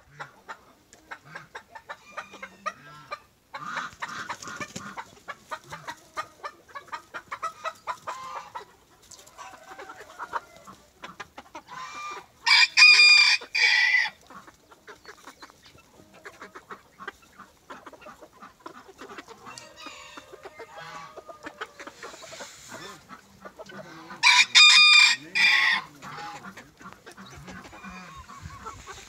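A flock of chickens, Silkie bantams among them, clucking and chattering, with a rooster crowing twice, about twelve seconds in and again about twenty-four seconds in. Each crow lasts under two seconds and is the loudest sound.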